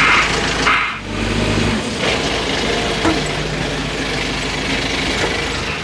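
Engine of a Manitou telehandler running steadily as it drives with a crate on its forks.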